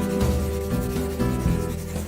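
Background music, notes changing about every half second, over a steady rubbing, scraping noise.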